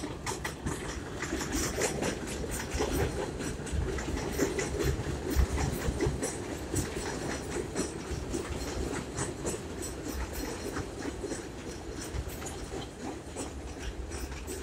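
R62A subway train running along a steel elevated structure: a steady rumble with many irregular clicks and clatters from the wheels on the rails.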